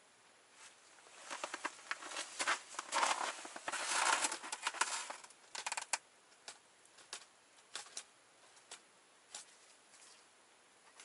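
Ice-fishing gear being handled: a dense patch of rustling and sharp clicks for a few seconds, then scattered single clicks and taps.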